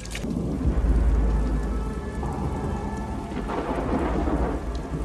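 Heavy rain falling on wet ground, with a sharp crack at the start and a deep rolling boom about half a second in that fades over the next second.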